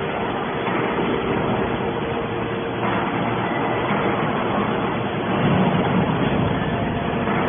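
Hydraulic scrap metal baler running: a steady mechanical hum from its hydraulic power unit, a little louder about five and a half seconds in.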